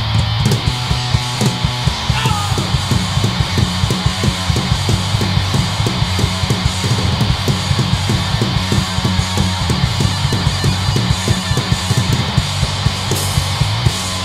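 A hardcore punk band playing live: electric guitar, bass guitar and drums, with a fast, driving drum beat of several hits a second under steady low bass and guitar.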